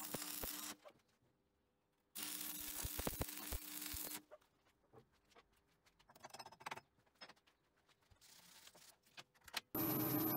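Stick-welding arc crackling and hissing over a steady hum as two tack welds are laid, the first ending just under a second in, the second running for about two seconds from about two seconds in. Then scattered light taps and scrapes of the slag being chipped off the weld, and near the end a milling machine starts running with a steady high whine.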